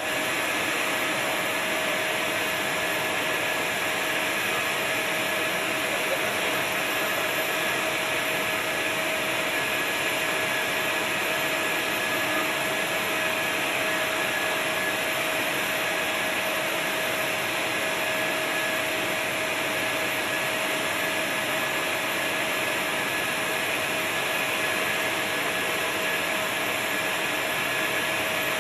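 Steady rushing noise of a running turbine power unit, with a constant high whine on top that holds one pitch throughout.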